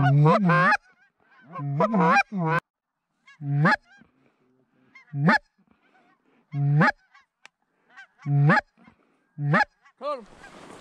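Loud goose honks: a quick run of honks at the start, then single honks about every second and a half. A hiss of noise rises near the end.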